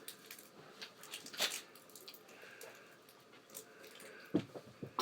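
Scattered small clicks and taps of plastic slime-making supplies being handled and opened, with a louder knock about a second and a half in and another past four seconds.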